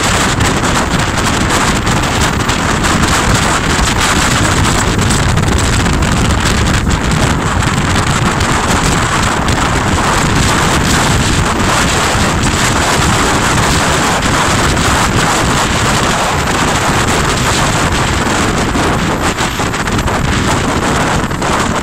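Steady wind buffeting the microphone over the rush of a jet boat under way.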